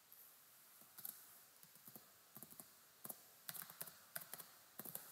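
Faint typing on a computer keyboard: irregular keystrokes in short quick runs.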